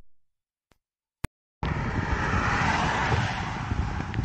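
A few sharp clicks in dead silence. About a second and a half in, a steady rushing noise with a low rumble underneath starts abruptly and holds.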